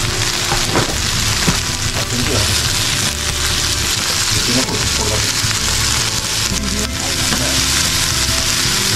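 Sweet peppers, pepper strips and halved mushrooms sizzling steadily in a hot frying pan, with the vegetables turned over with metal tongs partway through.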